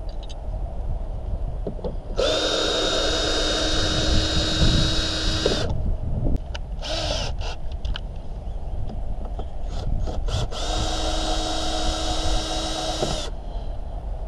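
Power drill-driver spinning in two steady runs of a few seconds each, with short trigger blips and clicks between them, backing out the screws and bolts that hold the van's interior trim.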